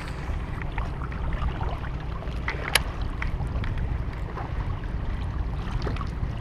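Wind rumbling on the microphone, with small waves lapping against the rocks. Scattered light clicks run through it, one sharper click a little under three seconds in.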